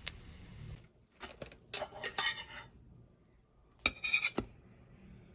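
A metal knife clinking and scraping against dishes while a slice of French toast is moved onto a ceramic plate, in two short clusters of clinks with quiet gaps between them.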